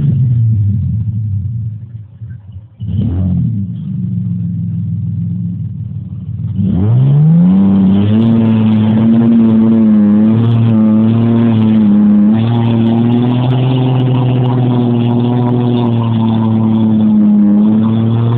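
A vehicle's motor revving under load as it climbs a steep dirt bank. There are two short revs near the start. Then it revs up about six and a half seconds in and holds a high, slightly wavering pitch until it winds down at the end.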